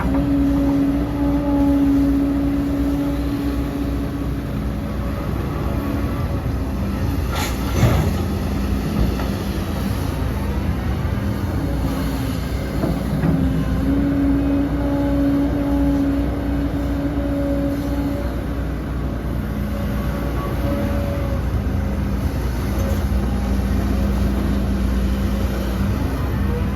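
Heavy diesel earthmoving machinery, an excavator and dump trucks, running steadily, with a whine that comes and goes at times and one sharp bang about eight seconds in.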